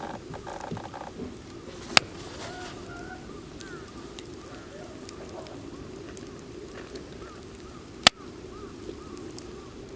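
Wood campfire burning with a steady low rush, with two loud sharp pops, about two seconds in and again about eight seconds in, and a few faint crackles between.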